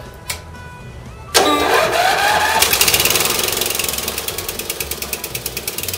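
A click, then the newly replaced electric starter on a Briggs & Stratton 15.5 OHV Intek single-cylinder engine cranks with a rising whine about a second and a half in. The engine catches about a second later and keeps running with a fast, even beat.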